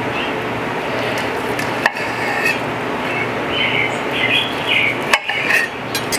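Knife sawing through a cooked ribeye steak on a ceramic plate, the blade and fork clicking against the plate a few times, over a steady background hiss.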